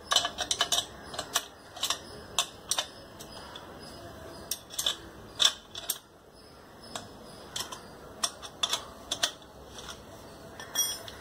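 Irregular metallic clicks and clinks of a homemade wrench being handled and fitted, its aluminium channel, threaded rods and nuts knocking together, with a quick cluster of clicks at the start and scattered ones after.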